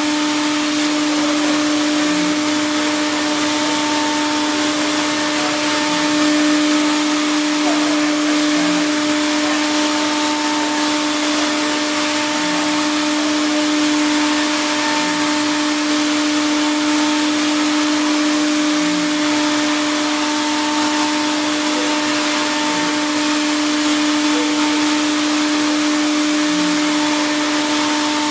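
Hurco VMX42HSi CNC machining center rough-milling aluminum: a steady spindle whine with overtones over a loud hiss of cutting and chip or coolant spray. A faint low pulse repeats every two seconds or so, in step with the cutter's passes.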